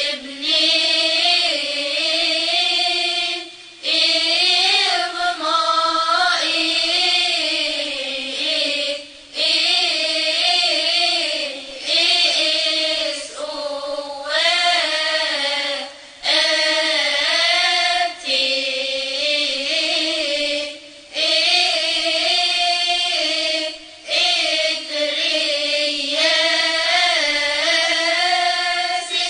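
Voices singing a religious hymn or chant in unison, in phrases of about two seconds separated by short breaths.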